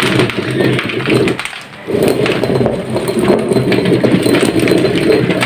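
Stone corn grinder being turned, its stones rumbling and grating as they grind corn, with a short break about one and a half seconds in.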